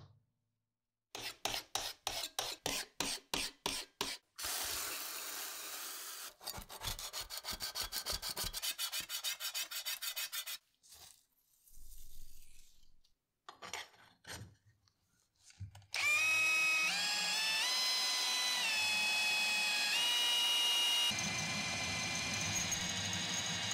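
Rhythmic scraping strokes on a steel knife blank, about three a second and later faster, then the crackle of protective film being peeled off the blank. From about two-thirds in, an electric drill's motor whines, stepping up and down in pitch, and then runs steadily as a twist bit bores a pin hole through the stainless steel blank.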